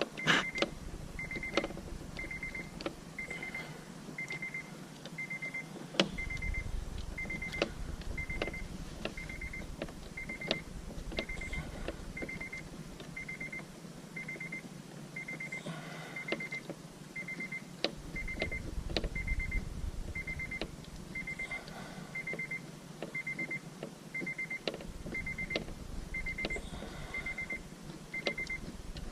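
A car's warning chime beeping steadily, about three short beeps every two seconds, with scattered clicks and knocks from hands and tools working on the car.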